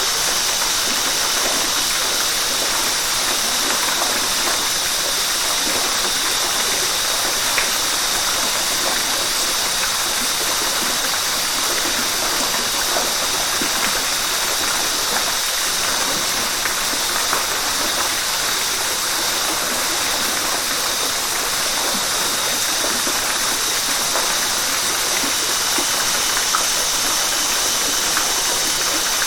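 River water flowing steadily, a continuous, even rush of water.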